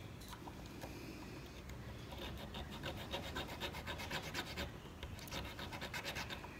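The nail file of a Swiss Army knife rasping along the edge of a small wooden part in quick short strokes, smoothing off a rough edge. The filing starts about two seconds in and pauses briefly near the end before a few more strokes.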